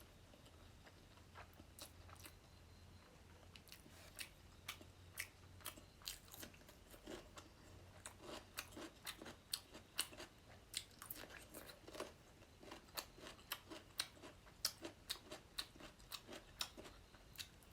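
Close-miked mouth sounds of someone eating fish curry: soft, wet clicks and smacks of chewing, a few a second. They start a few seconds in.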